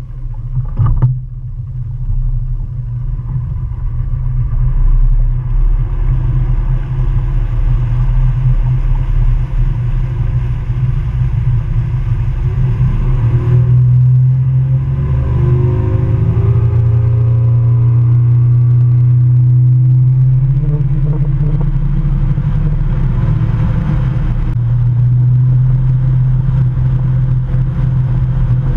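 Bass boat's outboard motor powering the boat up to running speed, with water rushing along the hull. The engine builds over the first few seconds into a loud steady drone, with a sharp knock about a second in and a brief shift in engine pitch about halfway through.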